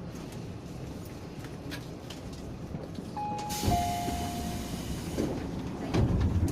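Tobu 10050 series train's door chime: two falling notes about three seconds in, the second held about a second, as the sliding doors close with a hiss of air and a heavy thump shortly before the end. A low rumble of the standing train underneath.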